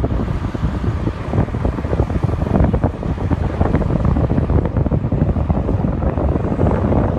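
Wind buffeting the microphone: a loud, low rumble that rises and falls in gusts.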